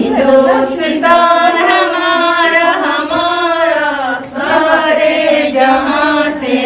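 Singing: a voice sings a melody in long held notes with a slight waver, breaking briefly between phrases.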